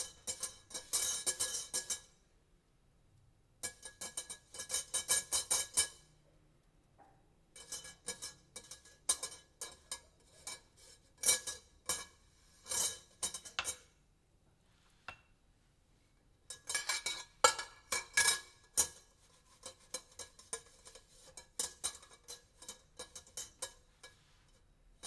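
Cooking-oil brush drawn over a metal air fryer rack, rattling and clicking across the wires in bursts of a second or two, with a metallic ringing, broken by short pauses.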